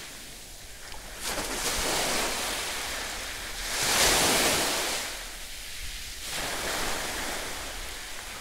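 Small sea waves washing on a shore, swelling and fading slowly, loudest about four seconds in.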